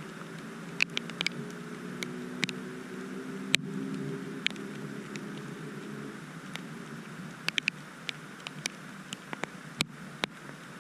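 Rain: scattered drops ticking irregularly close by over a light steady hiss, with a low vehicle engine hum that fades out about six seconds in.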